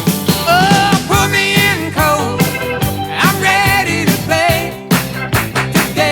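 Background music: a song with a sung vocal line over a steady drum beat.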